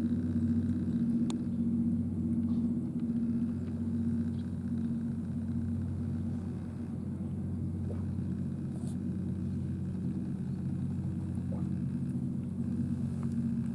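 A machine running steadily: an even, low rumble and hum with no change in pitch, and a few faint ticks over it.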